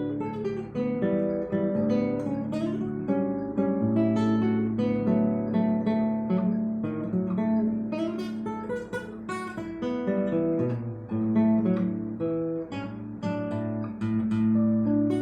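Solo acoustic guitar playing a choro: a quick run of plucked melody notes over a moving bass line.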